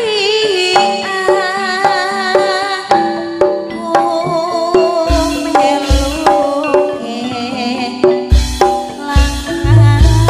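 Javanese gamelan ensemble playing: struck bronze metallophone bars and bonang gong-kettles ringing out a melody, with deep drum beats from about halfway through.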